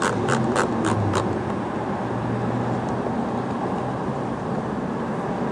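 A quick run of about six evenly spaced clicks over the first second, with a low hum that stops about a second in, then steady traffic noise.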